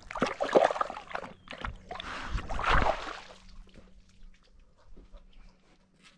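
A dog splashing and scuffing, picked up close by a camera strapped to its back: a run of loud, irregular splashy noises for about three and a half seconds, then only a few faint knocks.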